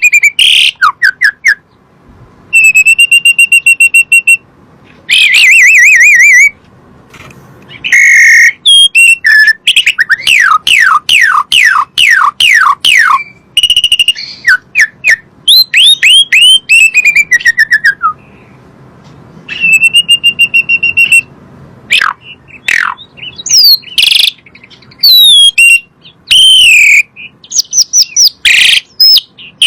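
Asian pied starling (jalak suren) singing a long, varied song: loud held whistles, runs of quick downward-slurred notes and rattling trills, in phrases broken by short pauses.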